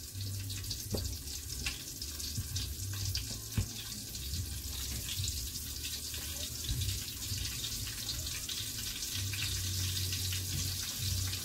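Chicken frying in a deep pot of hot oil: a steady sizzle with scattered crackles and pops, over a low steady hum.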